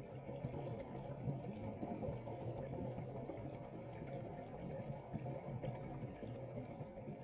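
Muffled churning and bubbling water, heard through a camera held underwater.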